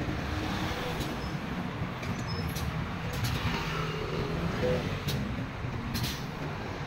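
Busy road traffic passing close: cars, a motorcycle and a large truck going by in a steady rumble of engines and tyres, with a few short sharp ticks.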